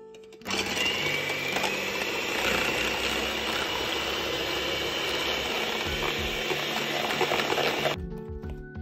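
Electric hand mixer beating egg whites in a stainless steel bowl, whipping them to a foam for meringue. The motor starts about half a second in, runs steadily with a faint slowly rising whine, and stops near the end.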